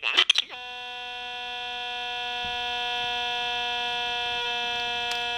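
A broken animatronic singing Santa's speaker stuck on one steady electronic note, held for about five seconds and slowly growing louder. It starts about half a second in with a short garbled snatch that drops into the held note.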